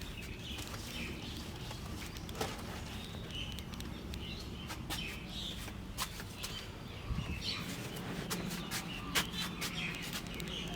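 Small birds chirping now and then in short calls, with a scatter of sharp clicks that come thickest in the second half.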